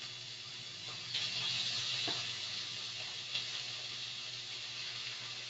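Shredded boiled chicken frying in hot oil with sautéed garlic and onion in a pan: a steady sizzle that swells about a second in, with a couple of faint knocks.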